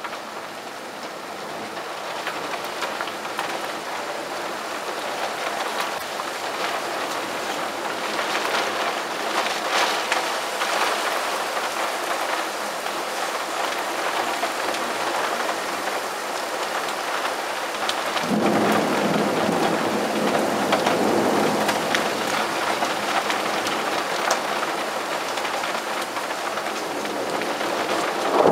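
Heavy rain falling in a steady hiss, growing heavier over the first several seconds. About two-thirds of the way through, a roll of thunder rumbles for several seconds, and another begins right at the end.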